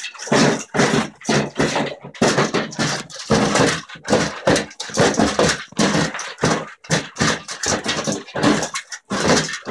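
Weimaraner eating dry kibble from a stainless steel bowl: a rapid, irregular run of crunching chews, about two or three a second.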